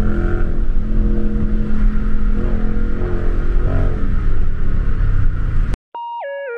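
Dodge Charger cruising at highway speed, heard inside the cabin: a steady engine hum with tyre and road rumble. It cuts off abruptly near the end, and electronic synthesizer music with stepping, warbling tones begins.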